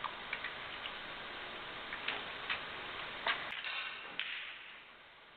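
Snooker cue striking the cue ball, then the balls clicking against each other: a scatter of sharp clicks over about four seconds over a steady background hiss.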